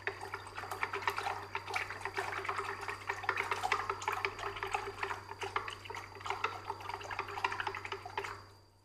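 Wooden chopsticks beating fresh pig's blood in a ceramic bowl: rapid clicking of the chopsticks against the bowl with the blood sloshing. It stops shortly before the end. This is the blood being whisked for tiết canh, Vietnamese blood pudding.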